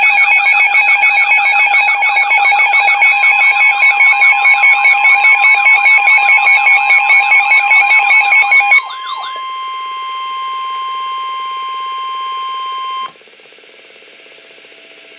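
Emergency alert tones for a tornado warning. A loud, fast-warbling alarm tone rides over steady beeping tones; about nine seconds in it gives way to a single steady alert tone, which cuts off suddenly about four seconds later and leaves a faint hum.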